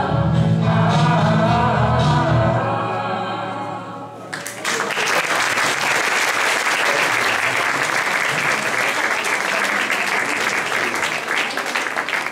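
Mixed choir singing the final notes of a song, which fade out about four seconds in; then the audience breaks into sustained applause.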